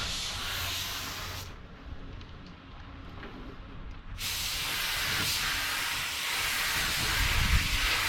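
Compressed air hissing in two long bursts, with a quieter pause of about two and a half seconds between them.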